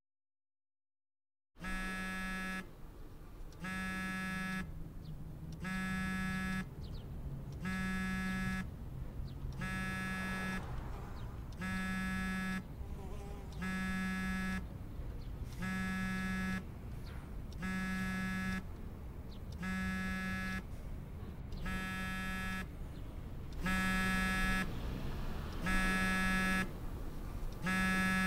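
An iPhone on vibrate buzzing against a hard tabletop for an incoming call: a steady rattling buzz about a second long, repeating about every two seconds, starting shortly after the start.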